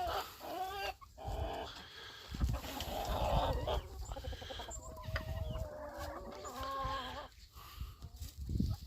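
A flock of farmyard poultry clucking and calling, with repeated short wavering calls throughout.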